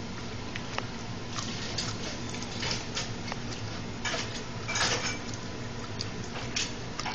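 Bull terrier licking peanut butter off its own foreleg: irregular wet licks and lip smacks, over a low steady hum.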